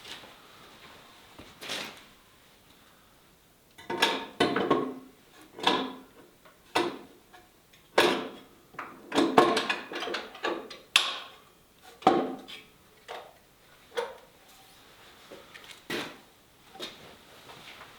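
Irregular knocks and clatters of hard objects being handled and set down, a dozen or so over several seconds, some with a short rattle.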